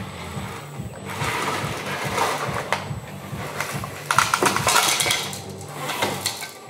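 Steel bucket of a scale RC Liebherr 574 wheel loader digging into a pile of small hard loose pieces. The pieces clink and rattle in two spells, the louder one about four seconds in.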